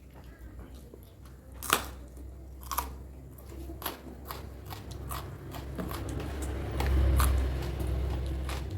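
Close-miked biting and chewing of crunchy food: a loud crunching bite about a second and a half in, more sharp crunches over the next couple of seconds, then steady chewing with small crunches that grows louder toward the end.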